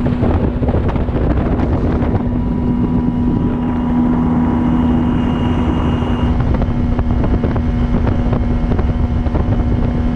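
Bass boat outboard motor running steadily at speed, its engine note holding level, with wind rushing over the microphone.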